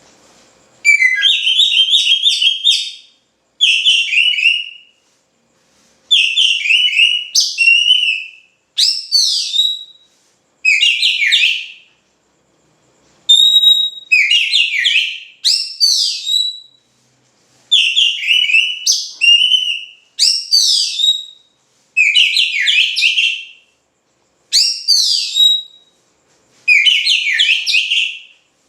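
Oriental magpie-robin (kacer) singing loudly and constantly: about eleven whistled song phrases of quick rising and falling notes and trills, each one to two seconds long, with short silent pauses between them.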